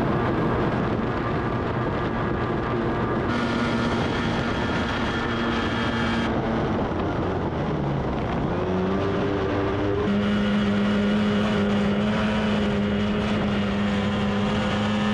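Boat-racing outboard motor running at speed on the water, a steady engine note whose pitch shifts and steps up about two thirds of the way through.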